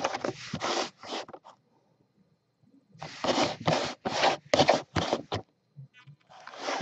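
Clear plastic mini-helmet display case rubbing and scraping as it is handled and turned on the table. It comes as a run of short scraping strokes, a pause of about a second and a half, then a second run.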